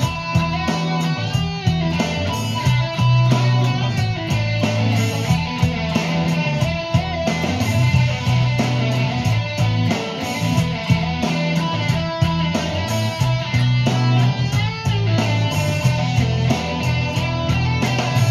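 Stratocaster-style electric guitar played continuously in a rock style over a backing track, with long, held low bass notes under the moving guitar lines.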